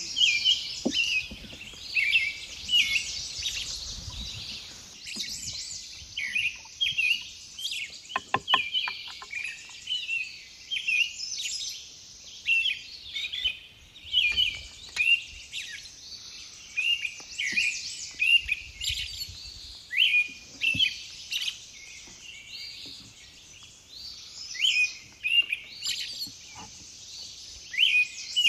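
Birds chirping and singing continuously in many short, high calls and trills, with a quick run of clicks about eight seconds in.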